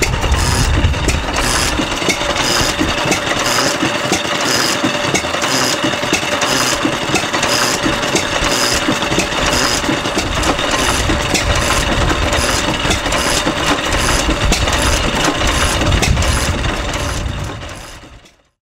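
Vintage single-cylinder stationary oil engine (hatsudōki) with twin spoked flywheels running steadily, with a regular beat of firing strokes over mechanical clatter. The sound fades out near the end.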